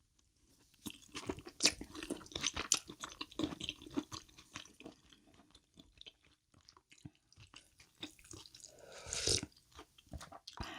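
Close-miked chewing of crunchy food, a dense run of crisp crunches starting about a second in.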